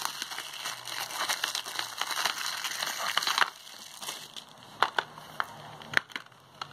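Plastic shrink wrap crinkling and tearing as it is peeled off a Blu-ray case for about three and a half seconds, then a few sharp, separate clicks as the case is handled.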